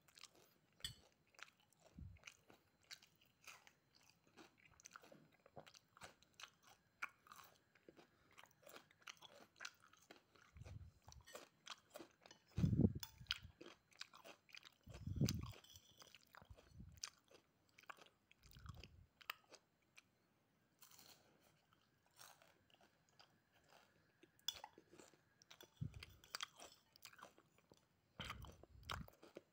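A person chewing and crunching mouthfuls of fried rice with crispy rempeyek peanut crackers. Many small crisp crunches run through it, with a few louder dull thumps in the middle.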